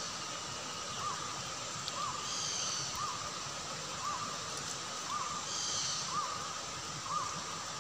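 A bird calling a short rising-and-falling note about once a second over a steady background hiss of forest and stream. Twice, higher and harsher calls come in.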